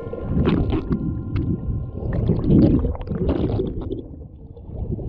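Muffled underwater sound picked up by an action camera below the surface: an irregular low rumbling and bubbling of moving water, with scattered sharp clicks.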